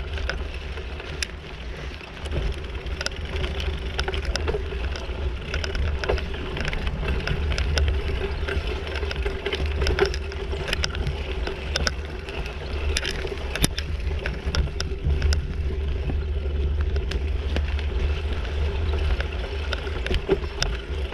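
Bicycle rolling down a rough dirt trail: tyre noise over the ground with frequent small clicks and rattles, a steady hum, and a heavy low rumble underneath.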